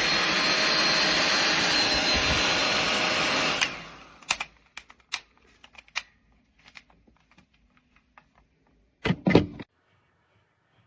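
Conair InfiniTiPro 1875 W hair dryer blowing steadily with a faint high whistle, then switched off about three and a half seconds in, its motor dying away within half a second. Scattered clicks and knocks of handling follow, and a loud double thump about nine seconds in.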